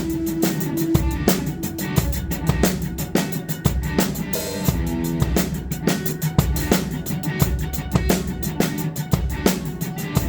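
Drum kit played in a steady rock beat, kick drum and snare hits driving the rhythm, along with a band recording.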